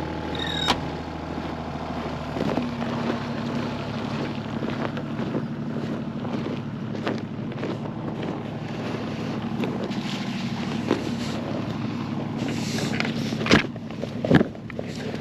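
Small excavator's engine running steadily, its pitch shifting about two and a half seconds in. A short rising squeak comes near the start, and a few sharp knocks come near the end.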